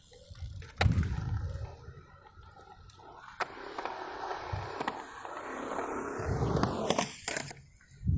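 Skateboard wheels rolling over pavement with sharp clacks of the board: one loud clack about a second in, a stretch of rolling from about three seconds in, and more clacks near the end. Gusts of wind rumble on the microphone.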